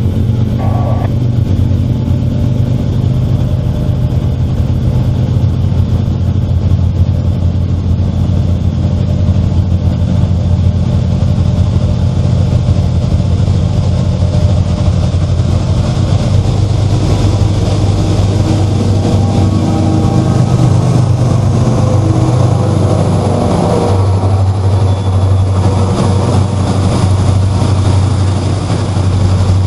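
CSX freight train going by close: the lead diesel locomotives' engines drone loud and steady as they approach and pass, and from about halfway through the freight cars' wheels add a rolling rumble and hiss along the rails.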